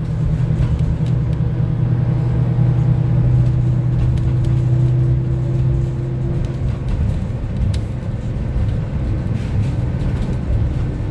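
Cabin sound of a 2025 Gillig BRT+CNG 40-foot transit bus underway: the natural-gas engine drones steadily over road rumble. The engine note falls away about seven seconds in, leaving tyre and road rumble.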